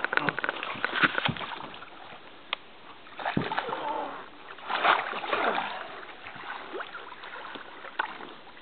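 Hooked saugeye splashing and thrashing at the surface of shallow water as it is brought into a landing net beside the boat, in irregular bursts of splashes: a cluster at the start, another about three seconds in, and the biggest around five seconds in.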